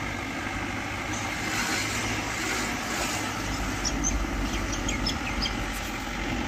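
Car engine running with steady road and wind noise, heard from inside the moving car, with a few faint short high chirps about four to five seconds in.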